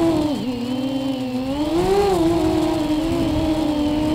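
250-size FPV racing quadcopter's brushless motors spinning 5045 bullnose propellers on a 3S battery, a steady buzzing whine heard from the camera on board. The pitch dips about half a second in and climbs back around two seconds in as the throttle changes.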